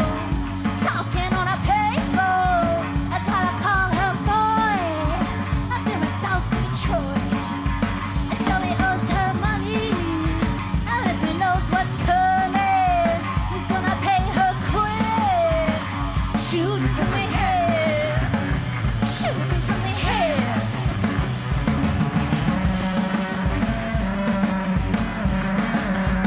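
Live punk-rock band playing: distorted electric guitar and drums driving on, with a woman's sung vocal line over them.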